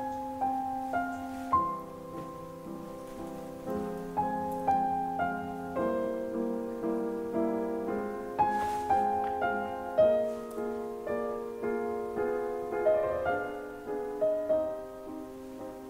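Piano music: a melody of single notes, each struck and fading, over sustained lower chords.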